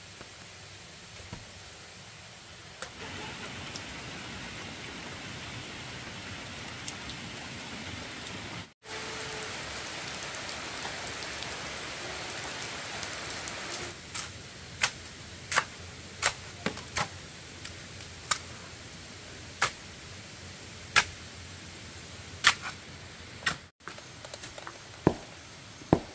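Steady rain hissing, louder for a stretch in the first half. In the second half, a series of sharp knocks about a second apart sounds over the rain.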